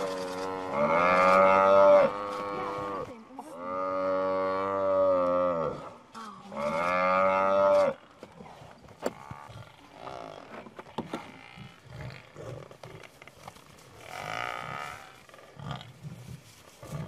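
African buffalo bellowing: three long, drawn-out moaning calls in the first eight seconds. After that it is much quieter, with scattered scuffs and a short rough call about fourteen seconds in.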